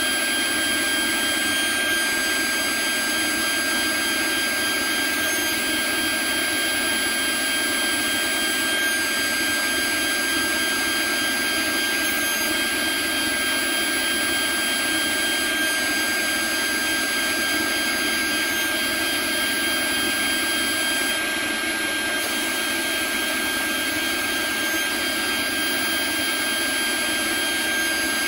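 CNC router spindle and end mill milling Delrin (acetal plastic): a steady, high-pitched whine made of several fixed tones over a continuous hiss.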